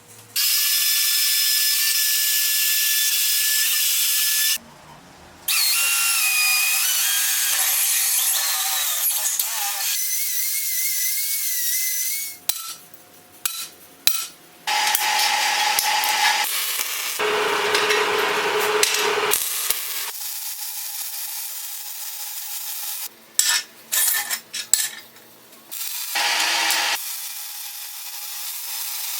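Power tools cutting and grinding metal in a string of short clips that start and stop abruptly, with a high whine that shifts in pitch as the tools bite.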